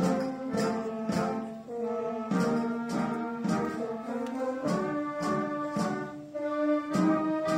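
Junior wind band of children playing a piece together: brass and woodwind instruments hold chords over a steady beat that falls a little less than twice a second.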